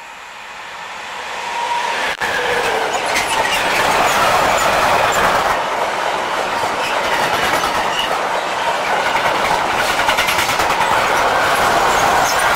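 A freight train of covered sliding-wall wagons passing close by. The noise grows quickly over the first two seconds as the locomotive comes up and goes past. The wagons then roll by with a steady, loud rolling noise and wheel clatter over the rails.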